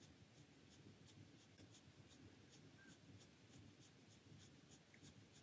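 Faint scratching of a ballpoint pen on thin typing paper, a steady run of quick short hatching strokes, about three a second, shading in a dark area of a drawing.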